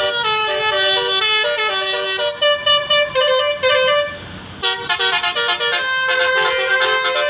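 Basuri musical air horn on a bus (the 'telolet') playing a tune of quick stepped notes, breaking off briefly about four seconds in and then starting a faster run of notes.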